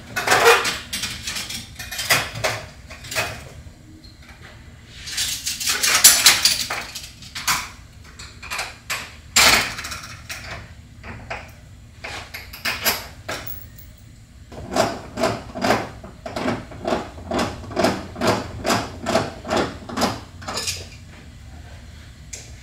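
Metal clinks, knocks and rattles of water heater earthquake straps and their screws being handled and fastened around the tank, with a short rushing noise about a quarter of the way in and a run of evenly spaced clicks, about two a second, in the second half.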